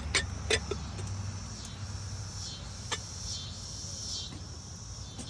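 Cicadas singing in a high chorus that swells and fades over and over. Over it are a few sharp clicks near the start and one more about three seconds in.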